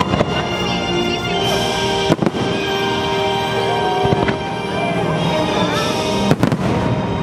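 Fireworks show: aerial shells bursting with sharp bangs, the strongest about two seconds in and near the end, over steady music.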